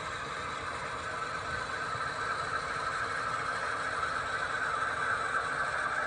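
HO scale model freight train running along the track: steady metallic rolling of the wheels on the rails, with a squealing tone that grows a little stronger toward the end.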